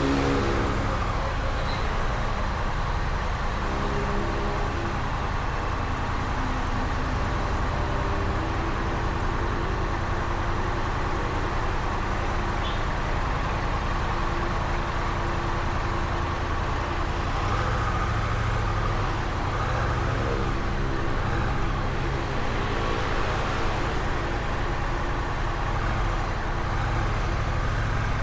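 Honda Rebel 1100 DCT's 1084 cc parallel-twin engine running through its stock exhaust at a steady road speed, about 60 km/h on cruise control, with road and wind noise, holding an even level throughout.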